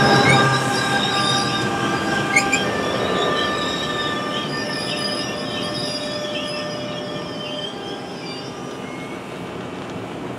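NJ Transit ALP-46 electric locomotive and its train running past and away, the wheels and running gear rumbling with several steady high-pitched tones, fading as it recedes. A single sharp click about two seconds in.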